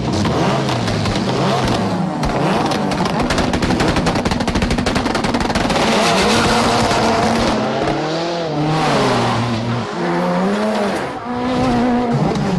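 Ford Fiesta rally car's turbocharged four-cylinder revving hard, its pitch rising and falling as the car slides, with rapid machine-gun-like exhaust crackling and popping through the first half. Tyres screech and skid under it.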